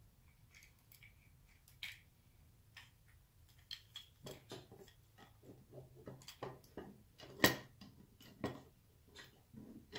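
Hard plastic parts of a MicroJig GRR-Ripper push block clicking and clacking as they are handled and slid onto the main body. A few light clicks at first, then a busy run of clacks from about four seconds in, the sharpest one about halfway through that run.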